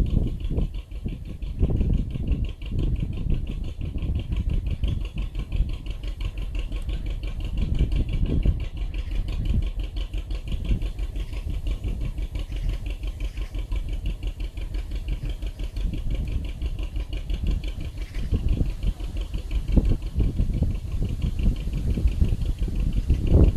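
A working narrow boat's engine running steadily as the boat moves along the canal, with a fast, even beat.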